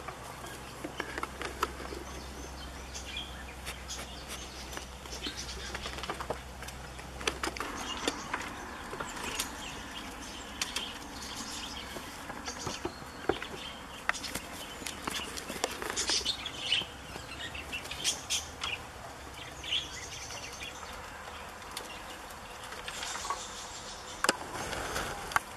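Goat kids' small hooves tapping and knocking on wooden bench planks and logs in irregular clicks, with birds chirping.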